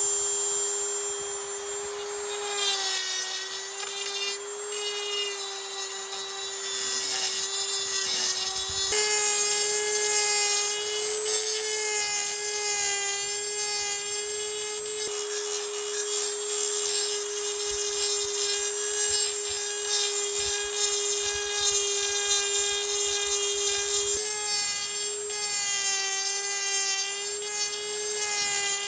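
Dremel 3000 rotary tool running at full speed with a tungsten carbide burr, grinding rough spots out of an engine cylinder's exhaust port: a steady high whine that dips slightly in pitch now and then as the bit bites into the metal.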